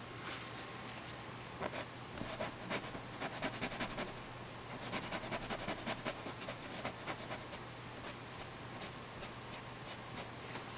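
Quick scratchy rubbing strokes of fingertips working oil paint into a coarse-weave canvas, several a second for about six seconds, then easing off to faint room hiss.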